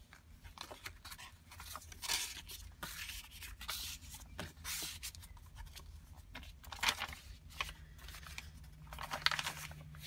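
Coffee-dyed paper tags and journal pages rustling and sliding as they are drawn out of a pocket and handled, with a few sharper papery swishes about 2, 7 and 9 seconds in.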